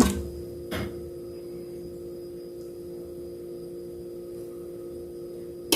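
Steady electrical hum with two light clinks of cutlery on a plate, one about a second in and a sharper one near the end.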